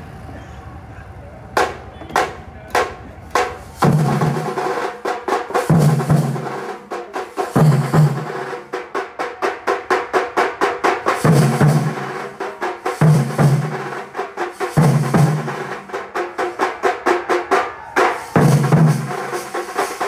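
Thambolam drum troupe of waist-slung drums played with sticks: a few single strokes, then about four seconds in the whole group breaks into a fast, dense rhythm with deep bass beats every second or two.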